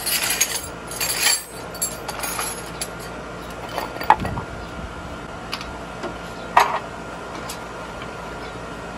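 Metal tools and parts clinking and clattering as they are handled, busiest in the first couple of seconds, then two sharper ringing clinks about four and six and a half seconds in.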